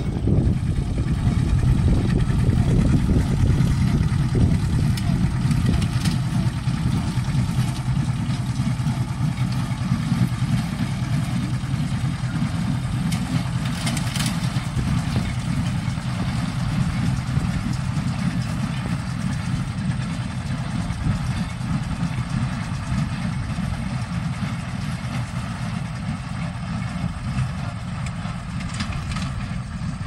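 Vehicle engine running steadily, a low even hum with a rumble underneath.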